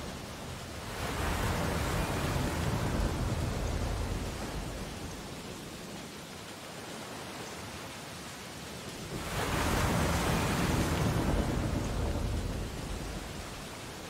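Sea waves breaking on a shore, twice: each one swells for a few seconds and fades back into a steady hiss of surf.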